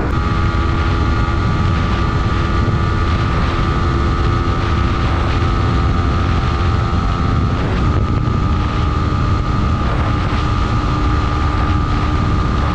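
Yamaha MT-15's 155 cc single-cylinder engine running at steady highway speed under heavy wind rush on the microphone. The engine note steps down slightly about eight seconds in.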